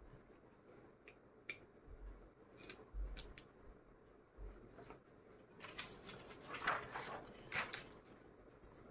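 Faint rustling and crinkling of a card-and-foil door toran being handled, with a few soft knocks; from about halfway through the rustling grows busier as it is lowered and set down.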